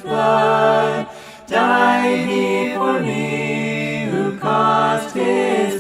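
A cappella hymn singing, several voices in harmony holding long notes with no instruments, with a brief breath break about a second in and another near the end.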